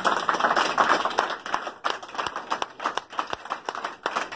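A small group of people applauding: dense clapping for about the first two seconds, thinning to scattered claps.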